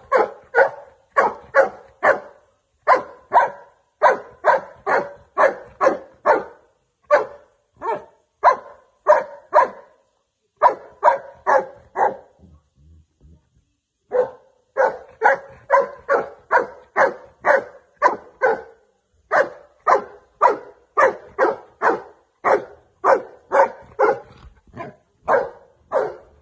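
A dog barking over and over in a steady run of short barks, about two or three a second, with a pause of a couple of seconds about halfway through.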